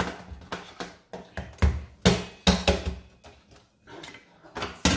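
Repeated sharp knocks, about eight in five seconds and irregularly spaced: raw crab claws and legs being tapped to crack the shell.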